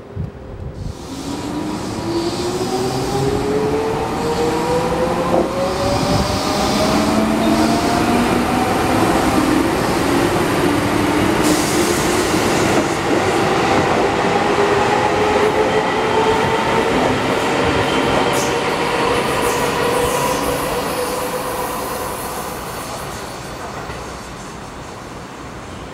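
Keihan electric commuter train running past and accelerating, its motor whine rising slowly in pitch over rail and wheel noise. The sound dies away near the end.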